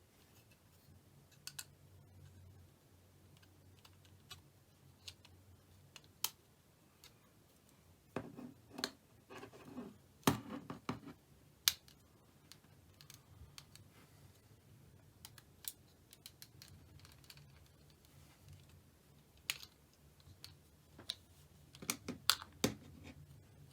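Small plastic clicks and taps as a Samsung C3590 flip phone's motherboard is handled and clipped back into its housing, scattered through, with short clusters about eight to eleven seconds in and again near the end.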